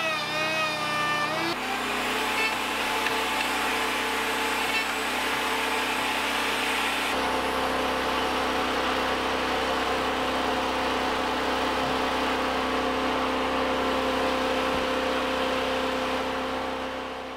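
A vehicle engine running at a steady speed while driving, with road noise. Its pitch steps down about a second and a half in and shifts again around seven seconds in, and it cuts off suddenly at the end.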